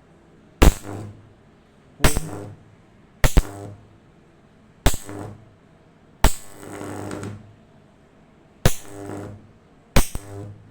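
High-voltage sparks from microwave oven transformers wired in series with a capacitor bank: a sharp crack every second or two, each followed by a short mains-frequency buzz as the arc holds briefly. The one about six seconds in buzzes for about a second, and two cracks come close together twice.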